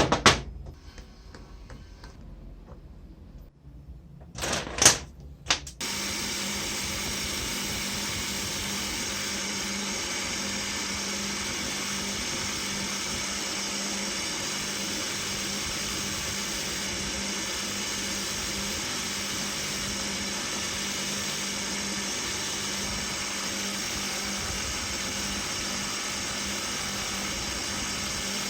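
A sharp knock and a brief clatter of handling, then about six seconds in an electric power tool starts and runs at a steady, unchanging speed with an even hum.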